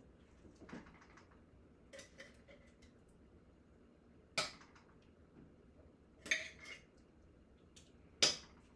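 A utensil clinking and knocking against stainless steel pots on a stove: a few separate sharp clinks, the loudest about four and a half, six and a half and eight seconds in.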